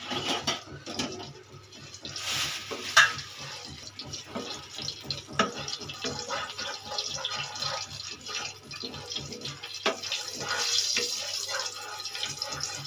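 Cumin seeds sizzling and crackling in hot oil in a non-stick kadai while a wooden spatula stirs and scrapes them, with one sharp knock about three seconds in. The seeds are being tempered until they darken and give off their aroma.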